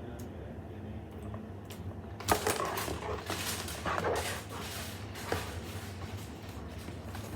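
Objects being handled: faint clicks, then a sharp knock about two seconds in, followed by a few seconds of clattering and rustling and one more click.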